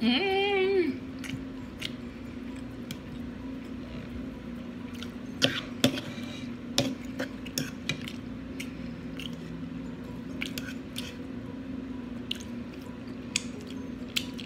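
A short wavering hummed vocal sound for about the first second, then close-up eating sounds: chewing, lip-smacking and wet clicks as chicken is eaten off the bone and fingers are licked.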